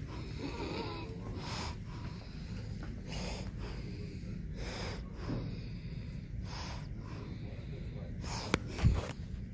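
A person breathing close to a phone's microphone, one noisy breath about every second and a half, over a low steady background rumble. A sharp click and a low thump come near the end.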